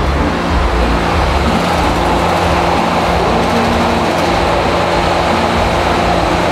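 Loud, steady mechanical rumble and hum of fairground ride machinery, with no distinct knocks or breaks.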